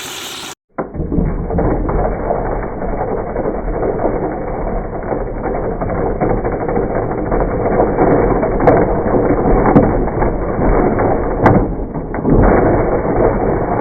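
Mixer grinder running loaded with two rubbery anti-stress balls, giving a loud, irregular rattling and knocking with a few sharp clicks as they are churned in the jar. The load sets the whole mixer shaking on its base.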